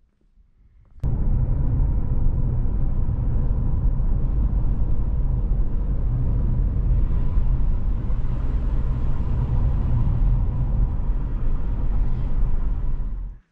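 Car driving on a paved road, heard from inside the cabin: steady, low road and engine noise that starts abruptly about a second in.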